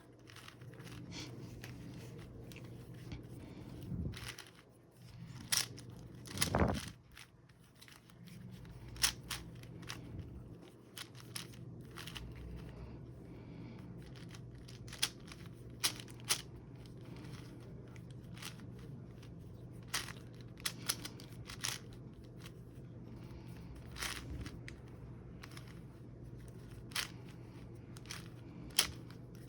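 Plastic Rubik's cube being twisted by hand: irregular clicks and scrapes of its layers turning, with a louder knock about six seconds in, over a faint steady hum.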